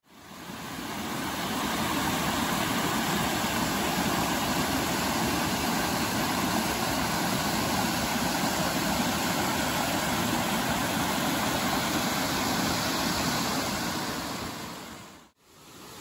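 Water rushing steadily down a small rocky cascade, a waterfall. It fades in at the start and fades out near the end.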